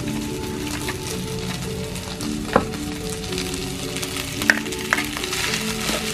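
Fried rice sizzling in a wok while a metal spatula stirs and scrapes through it. Three sharp clinks of the spatula against the pan come in the middle.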